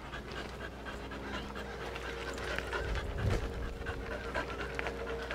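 A dog panting close by, with light footsteps and stroller wheels crunching on a gravel path.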